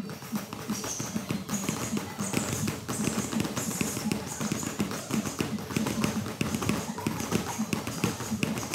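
Gloved punches and kicks landing on Thai kick pads and focus mitts, many irregular slapping strikes overlapping from several pairs training at once.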